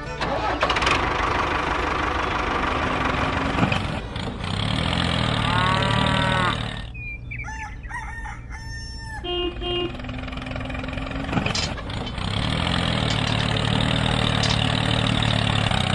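Tractor engine running steadily. It fades down for a few seconds in the middle while a rooster crows, then comes back up.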